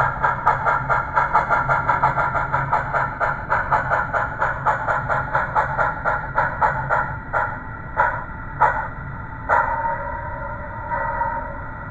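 HOn3 model train's sound locomotive chuffing in a steady beat of about four a second. The beat slows and thins to a few single chuffs as the train rolls to a stop.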